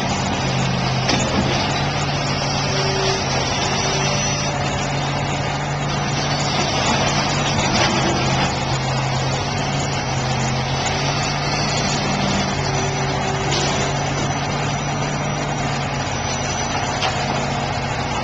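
An engine runs steadily at an even pitch. A few sharp knocks come through, one about a second in and others later.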